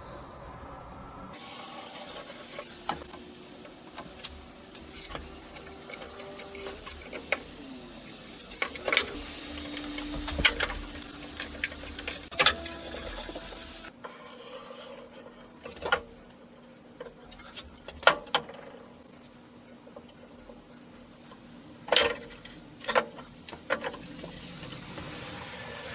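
Wooden boards and metal bar clamps being handled for a glue-up: scattered sharp knocks and clacks as boards are set down and clamps moved, over rubbing and sliding of wood.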